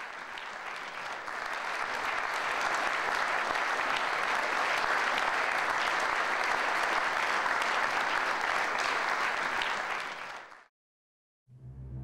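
Audience applauding, swelling over the first couple of seconds and holding steady before fading out near the end. Just before the end, low brass-and-drum music begins.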